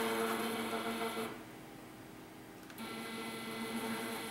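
CNC plasma table's y-axis stepper motor jogging slowly on its old 2-microstep drive: a steady, pretty noisy buzz that stops for about a second and a half in the middle, then starts again. The noise at slow speed comes from the old drive's coarse stepping.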